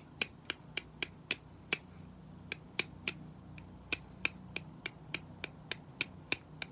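Flint-and-steel striking: a steel striker hit repeatedly against a small piece of chert, a series of sharp clicks about three to four a second with a couple of brief pauses, throwing sparks at char cloth to catch an ember.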